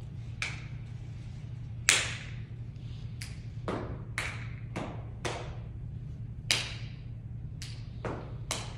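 A step team stomping and clapping in unison: about a dozen sharp strikes in an uneven rhythm, the loudest about two seconds in, over a steady low hum.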